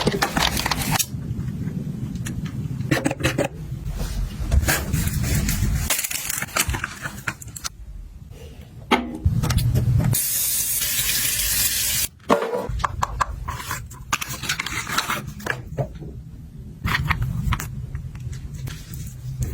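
Handling sounds of products and packaging being unpacked and put away: a run of clicks, knocks and scrapes over a low rumble, with a steady hiss for about two seconds around the middle.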